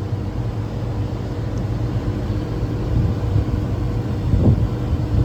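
Carrier HVAC unit running with its condenser fans on: a steady low mechanical hum and rumble.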